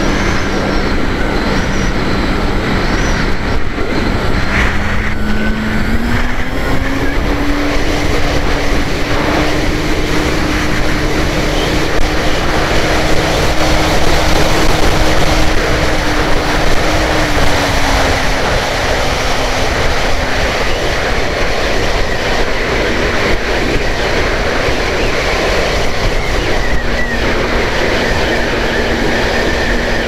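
Extra 330SC model aeroplane's motor and propeller droning in flight under heavy wind rush on its wing-mounted keychain camera. The propeller hum rises in pitch a few seconds in, holds, then drops back and fades about two-thirds of the way through, returning near the end.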